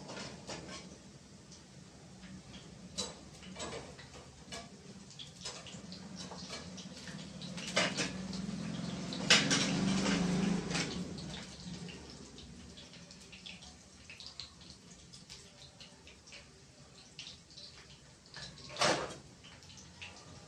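Moong dal dumplings frying in hot oil in a metal pan, sizzling, with scattered clicks and taps of metal on the pan. A louder stretch comes about nine seconds in, and a sharper knock near the end.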